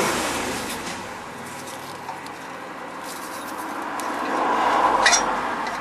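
Close-up rustling and scraping as a hand presses and rocks an exhaust downpipe that is split at the manifold joint. The noise swells and fades, with a sharp click about five seconds in.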